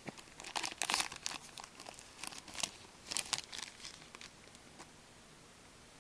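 Foil trading-card pack wrapper crinkling in a run of short irregular rustles as it is handled, dying away about four seconds in.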